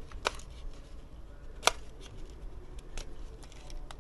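Handling noise from objects being moved about by hand: two sharp clicks or knocks, about a quarter second in and about a second and a half in, then a couple of fainter ticks near the end, over a low steady hum.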